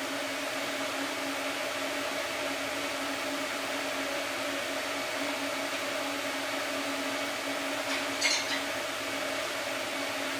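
Steady machine hum with a constant low tone, broken by one short sharp crackle about eight seconds in.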